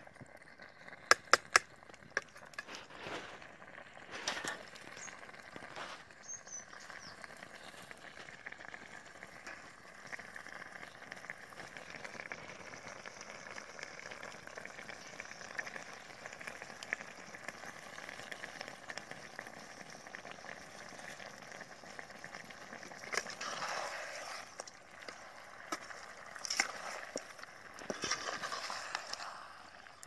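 Quail pieces in thick masala cooking in a large aluminium pan over a fire, with a steady sizzle. About a second in, a steel ladle clinks sharply against the pan three times, and near the end the ladle scrapes through the pan as it is stirred.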